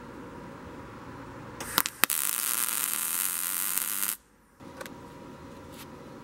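Wire-feed welding arc on steel: a couple of sharp pops as the arc strikes, then about two seconds of steady sizzling hiss that cuts off suddenly. A low steady hum runs underneath.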